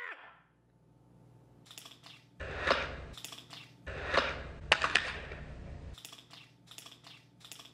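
Fingerboard wheels rolling across a hard tabletop and onto a small bench obstacle, in two runs with sharp clacks of the board and trucks hitting the bench, then a few lighter taps.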